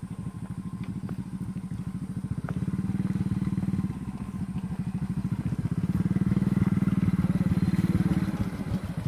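Small motorcycle engine running with a steady, quick firing pulse, revving up twice: from about two and a half to four seconds in, and again from about six to eight and a half seconds in.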